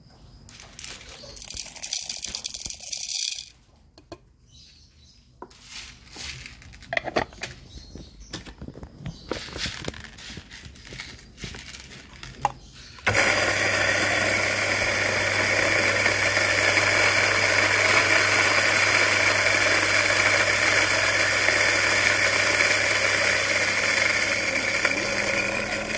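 Electric burr coffee grinder, set to 2.5, grinding coffee beans into its catch cup: it starts about halfway through with a steady whir and low hum, runs evenly for about twelve seconds and winds down near the end. Before it, short clicks and rattles of beans and parts being handled.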